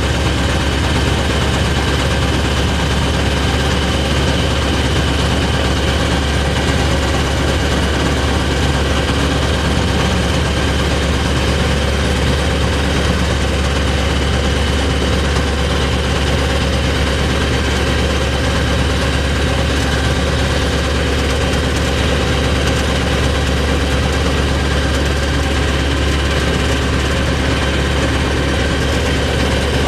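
Kitfox light aircraft's Rotax 912 flat-four engine and propeller running steadily, heard from inside the cockpit: a loud, even engine sound with no change in pitch.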